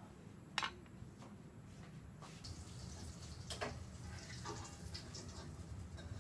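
Light kitchen clatter: a sharp click about half a second in, then scattered clinks and scrapes of a utensil working in a pan.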